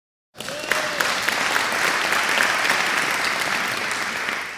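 Large crowd applauding: many hands clapping in a dense, steady wash that starts about half a second in and begins to fade near the end.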